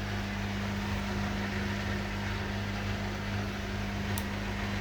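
Beko WMY81283LMB2 washing machine at the end of its cycle, a steady mains hum holding one pitch, typical of its drain pump running after the final spin, with a single light click about four seconds in.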